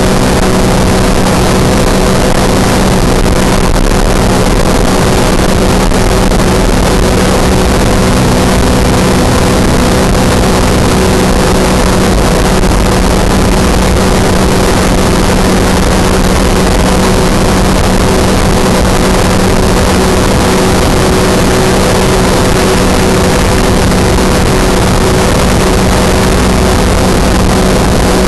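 Open-cockpit microlight trike in flight: its engine and propeller run at a steady cruise, a constant droning hum under heavy wind rush on the microphone.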